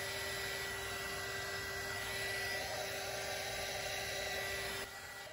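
Heat gun blowing steadily, a whir with a faint steady hum, shrinking and melting a heat-shrink solder splice connector on the live well pump's wires. It cuts off near the end.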